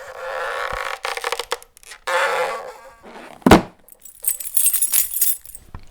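A sequence of homemade sound effects played by children: two grating, creaking scrapes with a few sharp clicks between them, one loud bang about three and a half seconds in, then a high jingling shimmer.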